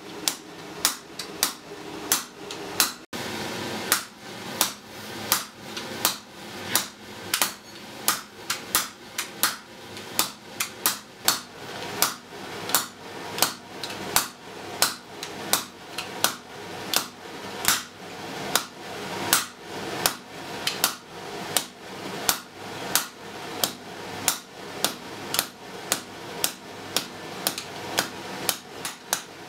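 Blacksmith's hand hammer striking a red-hot iron bar on an anvil, a steady rhythm of about two ringing blows a second, with a brief break about three seconds in.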